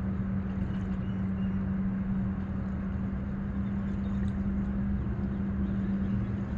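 A motor running steadily, a low hum at one unchanging pitch, over a constant low rumbling noise.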